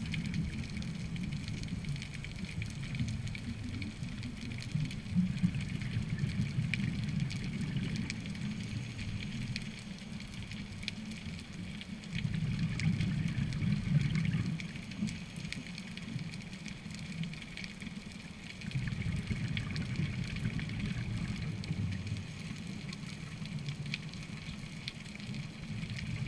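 Underwater ambience: a low, fluctuating rumble with constant faint crackling clicks.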